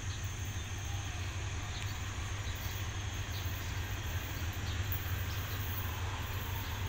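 Diesel locomotive running steadily as it approaches along the track, heard as a low, even rumble.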